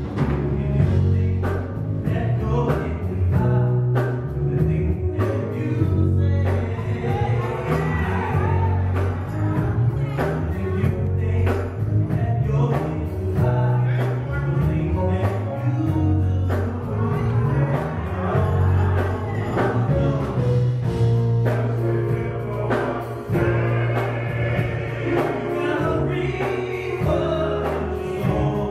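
Male gospel vocal group singing in harmony with a live band: keyboard, bass and drum kit keeping a steady beat.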